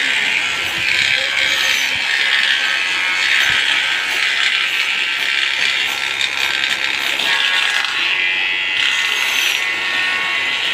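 A steady machine whir, with light clatter of thin wooden strips being handled and gathered.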